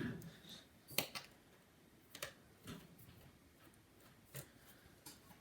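A few sparse, light clicks of small metal parts, from a precision screwdriver and the tiny bottom-case screws of a 2008 MacBook Air being worked and handled.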